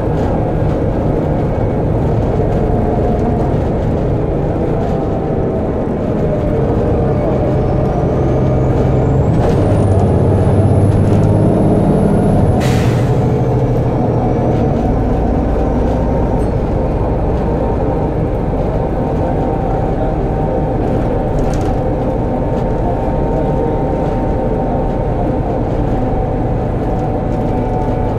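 Interior sound of a Volvo B7TL double-decker bus under way: a steady diesel engine drone with running rattle. A high whistle climbs over several seconds and ends in a short, sharp hiss of air about halfway through.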